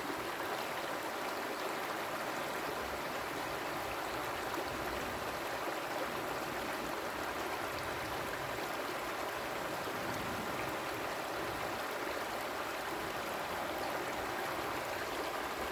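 Creek water flowing over rocks, a steady rushing burble.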